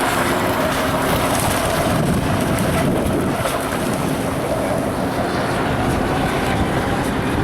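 Radio-controlled Miss Geico model racing boat running across a pond, a steady motor whine over water spray, with wind buffeting the microphone.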